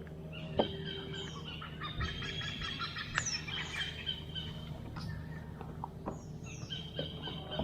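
Birds calling and chirping, with quick downward-sliding notes and bursts of trilling, over a steady low rumble.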